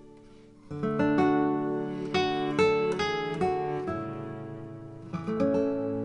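Background music on acoustic guitar: a run of plucked and strummed notes that rings on between strikes, coming in fuller a little under a second in after a soft lull.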